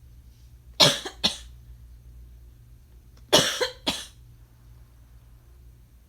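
A person coughing: two short coughs in quick succession, then after a pause of about two seconds another pair of coughs.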